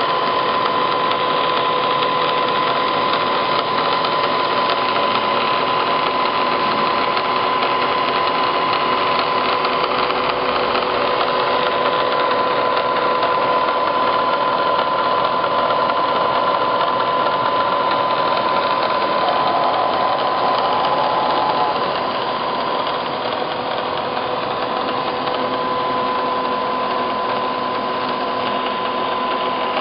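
Bridgeport Series 1 EZ Trak CNC milling machine running: a steady mechanical whir with a constant high whine, dropping a little in level about 22 seconds in.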